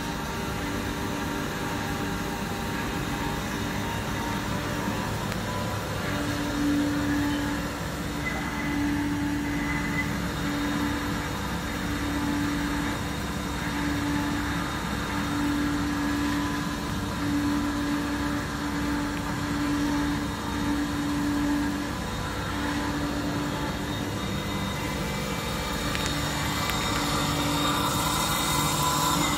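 Spark-eroding wire-cut machine running while its wire cuts thin brass sheet: a steady mechanical hum and hiss, with a low tone that breaks in and out about once a second from around six seconds in.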